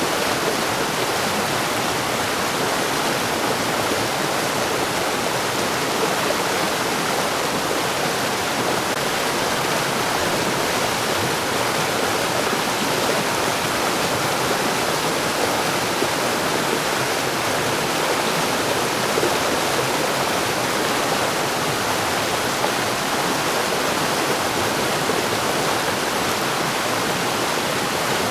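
Mountain stream flowing steadily over rocks: a constant rushing of water.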